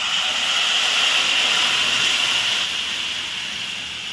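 Hot oil tempering in a kadhai sizzling loudly as chana dal stock is poured in. It is a steady hiss that eases slightly toward the end.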